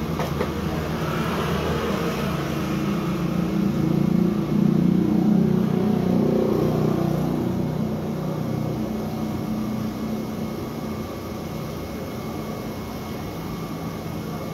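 A motor vehicle passing on the street: its engine sound grows for about five seconds, then fades away, over steady street noise.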